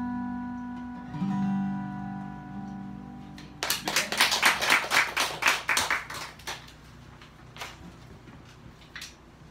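Closing chords of a 1980s Guild D-55 acoustic guitar ringing and dying away. About three and a half seconds in, a small audience starts applauding, and the clapping thins to a few scattered claps.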